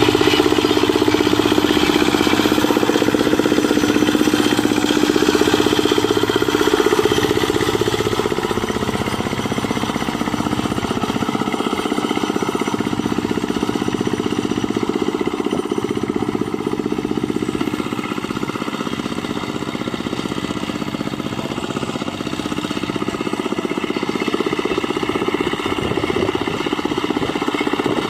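Single-cylinder Dongfeng diesel engine of a Quick Impala two-wheel hand tractor running steadily, slightly louder for the first eight seconds or so.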